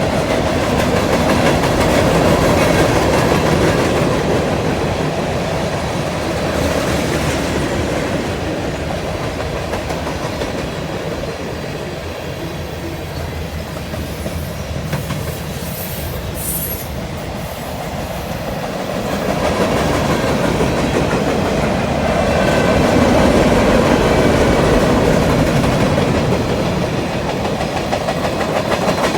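Freight cars of a long freight train rolling past, a steady rumble of steel wheels with clickety-clack over the rail joints, swelling and easing as the cars go by. About halfway through there is a brief high-pitched wheel squeal.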